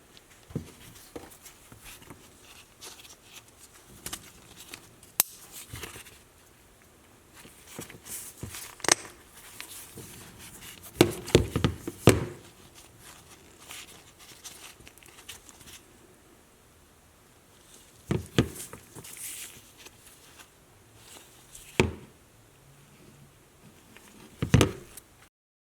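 Scattered clicks, taps and knocks of a metal hand tool being handled and worked, with a dense run of knocks about halfway through and a few single sharp clicks later; the sound stops abruptly near the end.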